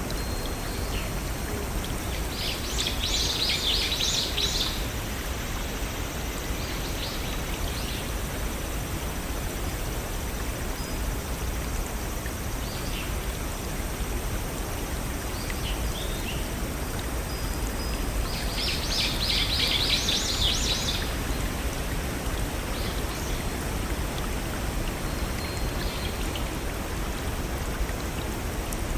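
Small waterfalls and a brook flowing steadily. Twice, a few seconds in and again about two-thirds of the way through, a brief flurry of rapid high notes rises over the water.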